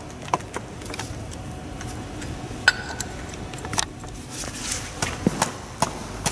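Scattered metal clicks and taps as a long metal hand tool is fitted into and worked against the metal cage of a drill-pipe camera running tool, with one brief metallic ring about halfway through.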